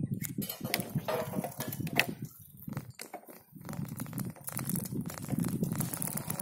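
Bicycle rolling along a paved road, with light clinks and rattles from its metal front rack over an uneven rumble of tyres and wind on the microphone; the rumble dips briefly partway through.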